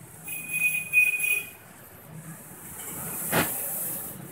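A high, steady squeal for about a second and a half, then the rush of a passing motor vehicle swelling up, with a knock at its loudest point.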